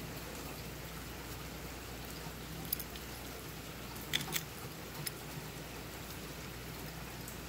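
A few faint, light clicks of small bolts and washers being handled over a steady low hiss.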